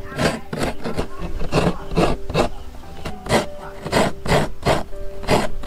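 Fresh coconut meat being scraped out of a half shell against the serrated metal blade of a hand-held coconut scraper, a rasping stroke repeated about two to three times a second.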